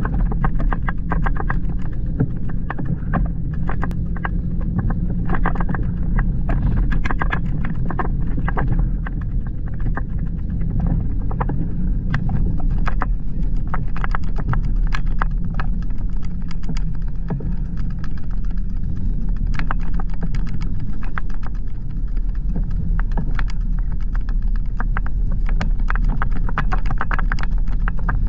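A Jeep driving slowly off-road over a snowy, rocky track: a steady low engine rumble with frequent irregular clicks and knocks from the tyres and running gear on the rough ground.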